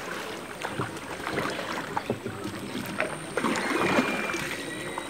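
Shikara boatmen's wooden paddles dipping and splashing in lake water, with scattered knocks.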